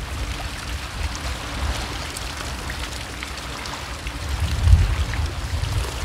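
Seaside wind and water ambience: an uneven low rumble of wind on the microphone under a steady wash of water among the rocks, with a stronger gust about four and a half seconds in.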